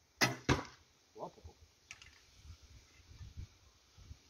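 A 56-inch, 70 lb take-down hunting recurve bow being shot: a sharp snap as the string is released, then a second sharp hit about a third of a second later as the arrow strikes the target. A few faint clicks follow.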